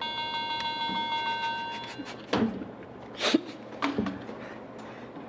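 A bright ringing tone of several held pitches lasts about two seconds, then three separate thuds follow about a second apart.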